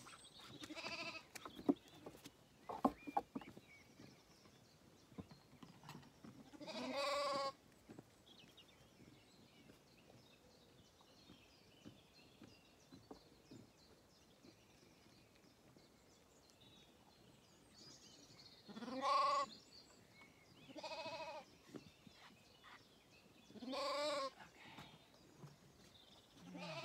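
Zwartbles lambs bleating, about five or six calls spread out with quiet gaps between. Each call lasts a second or so and has a quavering pitch.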